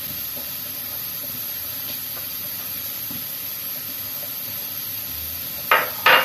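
Steady hiss, then near the end two short, loud scrapes of a metal spoon stirring custard powder into milk in a small glass.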